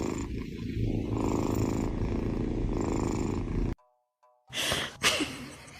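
A cat purring close up, a steady rumble that cuts off abruptly after about three and a half seconds. Two short noisy sounds follow near the end.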